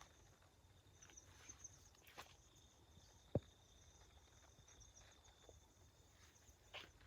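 Quiet outdoor ambience with insects chirping steadily at a high pitch, a few soft rustles, and one sharp click about three and a half seconds in.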